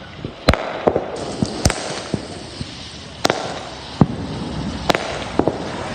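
Consumer fireworks going off: about seven sharp bangs at irregular intervals, with fainter pops between them.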